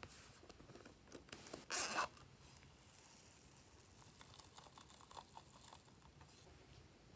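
A zipper on a small pouch pulled with a short rasp about two seconds in, then light scattered ticking as small plastic beads are tipped out onto slime.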